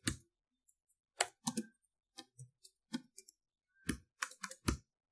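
Computer keyboard keystrokes typing a command, in irregular short clusters, with a heavier keystroke near the end.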